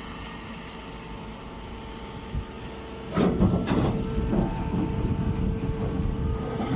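Chopped-hay press baling machine running with a steady motor hum. About three seconds in, a sudden clatter starts a louder, rough mechanical rush that keeps going.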